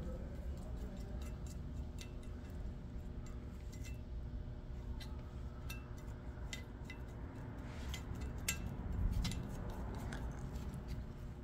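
Scattered light metallic clicks and clinks of small brake parts being handled while the pad slides are greased, over a steady low hum from a heater.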